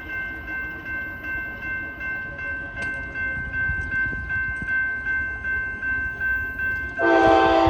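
A grade-crossing warning bell rings in a quick, even rhythm as a train approaches, with a low rumble rising underneath. About seven seconds in, a diesel locomotive's air horn suddenly sounds loud and holds.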